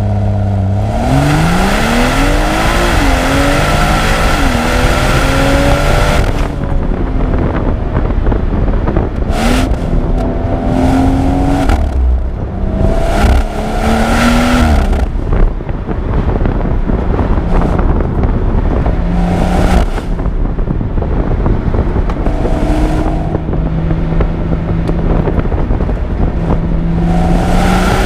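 BMW M240i's turbocharged 3.0-litre straight-six accelerating hard several times, its pitch rising through the revs and dropping back at each gear change or lift, over steady road and wind noise.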